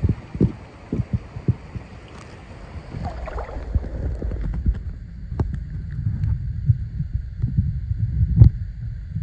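Shallow stream water heard through a camera microphone that is lowered under the surface about three seconds in. From then on the sound is a muffled underwater rumble of soft thumps, with a few sharp clicks.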